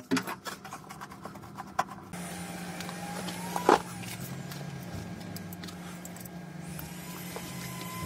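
A steady low mechanical hum, like a motor running, sets in about two seconds in. A few light clicks come before it, and a single sharp clack lands a little past the middle.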